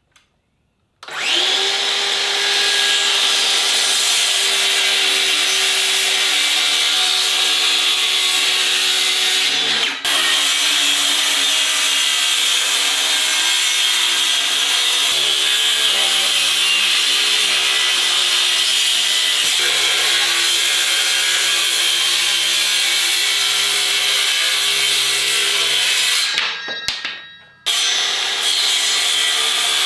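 Circular saw ripping a wooden panel. The motor starts about a second in and cuts steadily with a high whine, dips for a moment around ten seconds in, and winds down near the end before starting again for more cutting.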